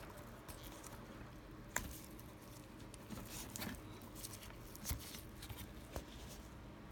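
Faint rustling and fiddling of gloved fingers working the wire connectors off the igniter terminals of a Honda distributor, with a few sharp little clicks, the clearest about two seconds in.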